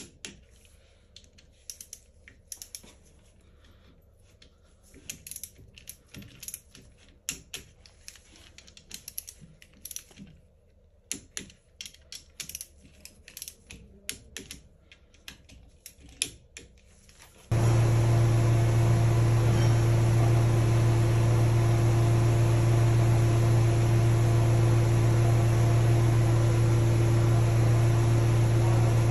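Light, scattered clicks and taps of small metal parts and hand tools being handled during engine assembly. About two-thirds of the way through, a loud steady machine hum with a low drone starts suddenly and keeps going.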